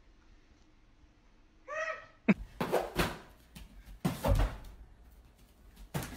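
About two seconds of near silence, then a short vocal sound and a sharp click, followed by several irregular knocks and thumps mixed with bits of voice, as someone stretches up to a high kitchen cabinet.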